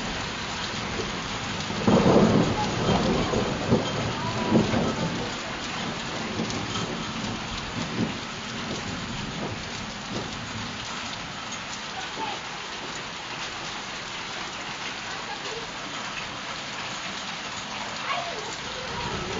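Steady patter of heavy snowfall falling on the ground and roofs, with a rumble of thunder from about two to five seconds in.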